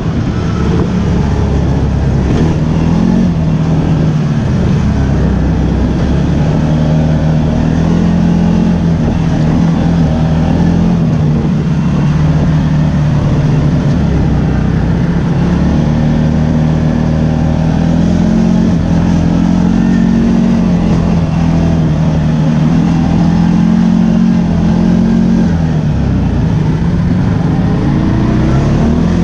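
ATV engine running under way, its pitch rising and falling as the throttle is opened and eased off.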